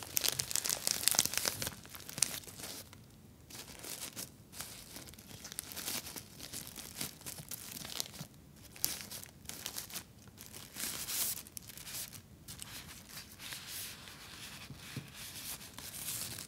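Plastic wrapper of a pack of Always Sensitive sanitary pads being torn open and rustled by hand: an uneven run of sharp crinkles and crackles, loudest in the first two seconds and again about eleven seconds in.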